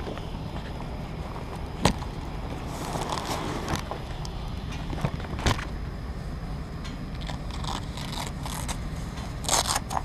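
Handling noise from an action camera being moved and set down on a scooter seat: sharp knocks, scrapes and rustles, loudest as a cluster of clicks near the end, over a steady low rumble.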